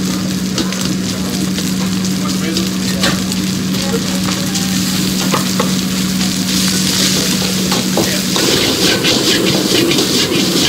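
Fried rice sizzling in a hot wok while a metal wok ladle scrapes and knocks against the pan in many quick clicks. A steady low hum runs underneath until about eight seconds in, and from then the sizzle gets louder and brighter as the wok is tossed.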